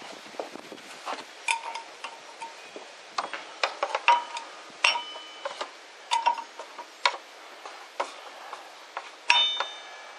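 Steel wrenches and other metal tools clinking against each other as they are rummaged through, a string of sharp clinks, several of them ringing briefly.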